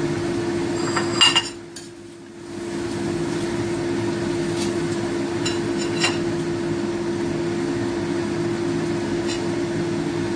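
A metal spatula stirring curry in a steel wok, clinking against the pan a few times, over a steady background hum.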